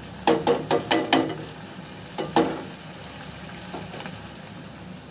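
Wooden spatula stirring and knocking against a steel pan of thick tomato chutney: several quick knocks in the first second and one more a little later. Between and after the knocks the hot chutney sizzles softly, the gas just turned off.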